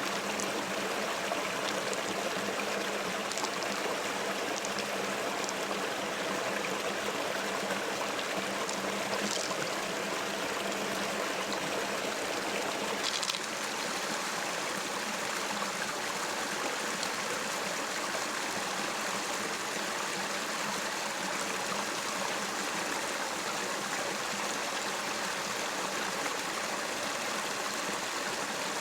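River water flowing and rushing steadily, with a few small clicks and a faint low hum that stops about halfway.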